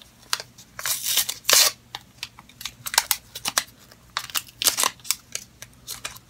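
Plastic packaging of Baby Lips lip balms being handled and torn open: irregular crinkling and crackling with sharp clicks, in short bunches.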